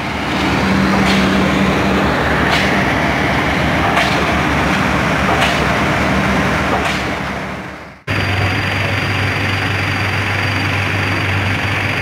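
Diesel concrete pump and truck mixer running loud and steady on a foundation pour, with a sharp knock about every second and a half as the pump strokes. After a cut about eight seconds in, a steadier, lower engine hum.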